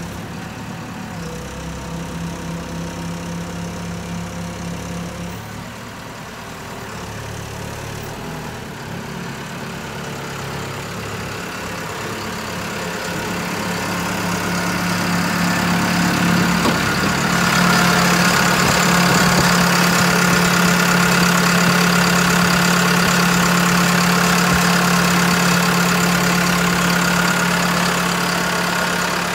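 Diesel engine of a 2007 Caterpillar TL943 telehandler idling steadily. It grows louder about two-thirds of the way through, with more whirring higher up.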